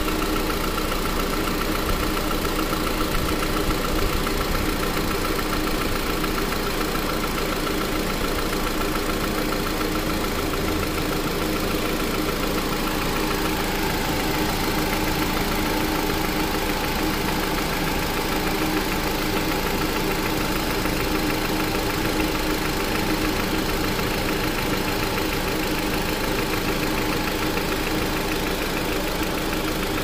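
2007 Honda Accord's 2.4-litre four-cylinder engine idling steadily with the AC compressor engaged and the radiator cooling fans running, heard from the engine bay while the AC system takes its R134a charge.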